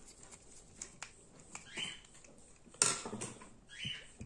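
Small clicks and scrapes of a screwdriver working a terminal screw on a plastic light switch, with a sharper click about three seconds in and a couple of soft rustles.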